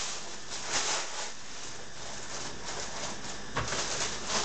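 Plastic bread bag crinkling and rustling as a slice of bread is taken out and laid on a cutting board, with louder crackles about a second in and again near the end.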